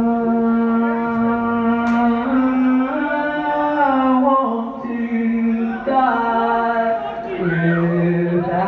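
A man singing a cappella, holding long wordless notes that step up and down in pitch and drop lower near the end.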